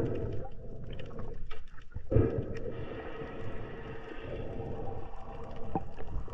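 Muffled underwater noise picked up by a camera in a waterproof housing: a steady low rumble and hum of water, with a few faint clicks.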